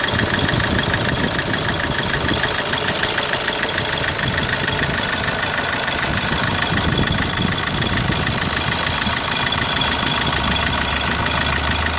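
Opel Corsa D 1.3 CDTI four-cylinder turbodiesel engine running steadily at idle, with a fast, even ticking clatter over the engine note. The owner is asking about this noise; the car pulls normally but gives blue smoke on cold starts.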